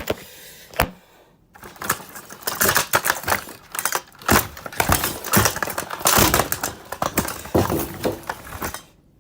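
Hard plastic of a Dirt Devil race car vacuum clattering and cracking under rough handling: a rapid, uneven string of knocks and snaps that stops abruptly near the end.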